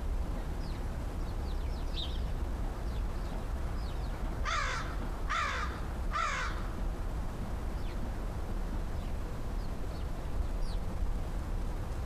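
American crow cawing three times in quick succession, each caw about half a second long and a little under a second apart, over faint high ticks and a steady low background hum.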